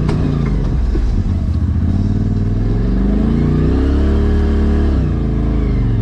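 Polaris RZR Turbo S side-by-side's turbocharged twin-cylinder engine pulling along a trail, a knock at the start; the engine's pitch climbs from about two seconds in, holds, then drops back a little after five seconds as the throttle eases.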